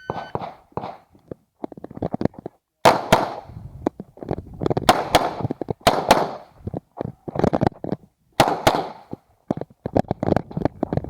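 A shot timer beeps once, then an Uzi Pro 9mm pistol fires a string of shots on an IPSC stage. The loudest shots come mostly in quick pairs with short pauses between them, among fainter clicks and knocks.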